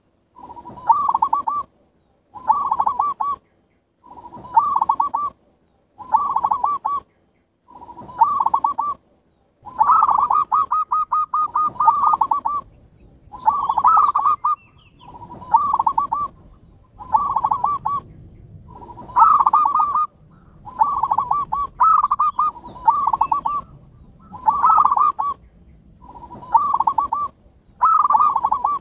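Zebra doves (perkutut) cooing: a rolling coo phrase of quick beats, each about a second long, repeated roughly every two seconds, with one longer run of rapid beats about ten seconds in.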